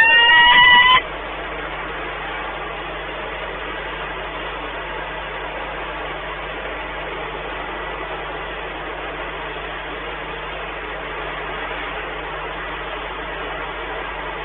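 A peregrine falcon gives a loud, wavering call for about the first second, then stops. After that there is only a steady background hiss.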